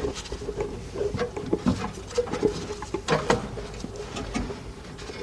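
Irregular clicks, knocks and scrapes of a starter motor being worked up into place against the engine by hand, with a louder couple of knocks about three seconds in.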